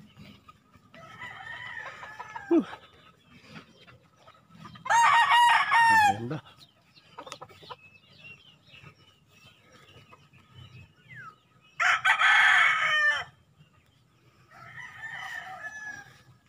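Gamefowl roosters crowing: two loud nearby crows about five and twelve seconds in, each over a second long, with fainter crows from other roosters around two and fifteen seconds in.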